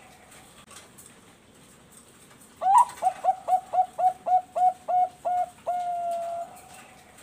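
Bangkok-bred zebra dove (perkutut) cooing. After a quiet start, about two and a half seconds in, it sings a string of about ten quick clipped coos, evenly spaced, then ends on one long drawn-out note.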